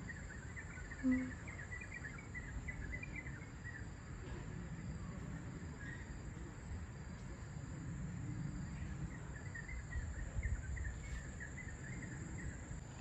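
Tropical orchard ambience: a steady high insect drone, with bursts of small chirps early on and again near the end, over a low steady rush. A brief low hum sounds about a second in.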